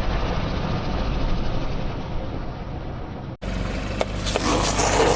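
Car engine running with a steady low hum. About three and a half seconds in the sound cuts out for an instant, and a louder take follows with the engine hum plus scattered clicks and crackling.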